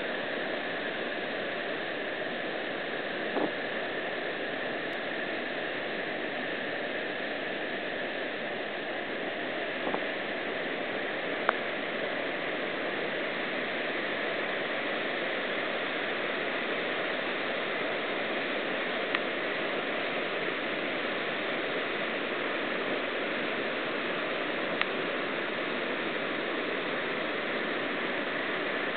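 Steady rush of whitewater river rapids, unbroken throughout, with a few faint short clicks.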